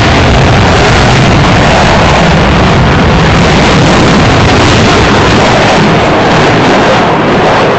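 F-15 fighter jet's twin engines giving a loud, steady roar as it flies past, easing slightly near the end.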